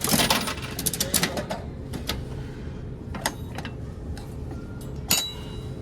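Claw machine being played: a quick run of sharp clicks and clatters, then scattered single clicks, over a steady hum, with a short burst of faint electronic beeps near the end.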